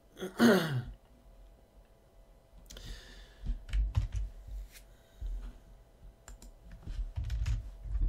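A short sigh that falls in pitch, then scattered computer keyboard keystrokes and mouse clicks.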